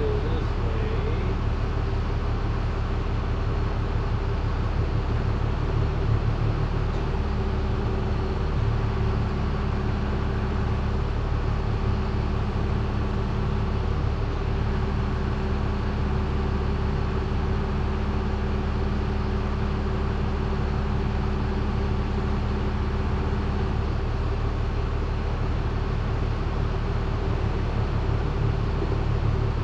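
Steady low drone of running machinery, with a steady hum that comes in about seven seconds in and drops out with about six seconds left.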